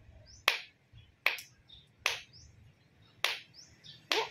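Finger snapping to get a dog's attention: five sharp snaps at uneven spacing, roughly one a second.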